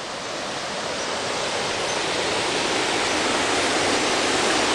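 Water rushing steadily over a small dam's spillway, a continuous roar of falling water that grows louder over the first few seconds.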